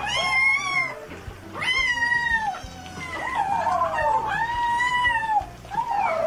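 A litter of kittens mewing: a string of long, high calls about a second each, several voices overlapping.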